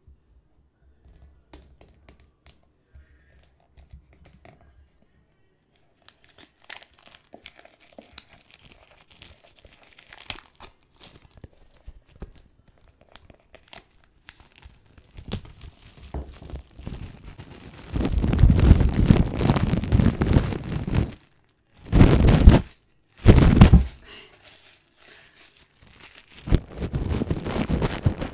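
Hands handling a cardboard AirPods box, soft scraping and tapping at first, then loud crinkling and tearing of its packaging in several bursts over the last ten seconds.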